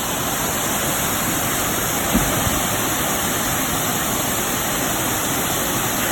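Waterfall rushing steadily, with one brief low thump about two seconds in.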